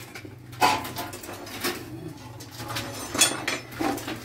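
Intermittent knocks and clatter of metal and wooden objects being handled, over a steady low hum.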